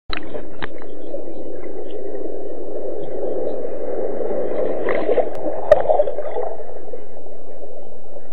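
Muffled, steady rush of seawater picked up by a camera at or just under the surface, with a few knocks near the start and the sharpest one a little before six seconds in.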